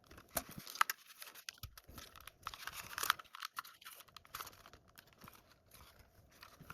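Close-up handling of small plastic drone parts as a DJI Mini 3's replacement arm hinge is fitted: irregular clicks, taps and scraping, loudest a little under a second in and again about three seconds in.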